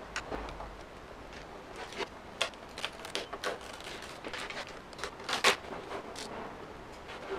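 Vinyl wrap film being worked by hand, giving irregular short crackles and clicks, the loudest about five and a half seconds in.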